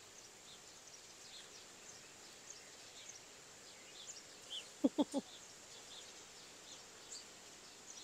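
Small birds chirping in the background, many short high chirps, over a faint steady high tone. About five seconds in, three short low calls come in quick succession.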